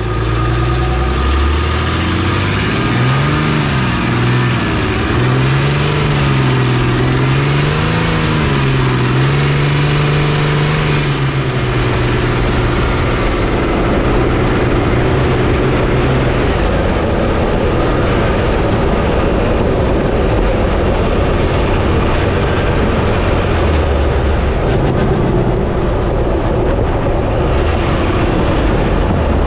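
Pickup truck engine running while the truck drives over a rough road. The revs rise and fall for roughly the first ten seconds and then settle to a steady pitch, with constant road and wind noise.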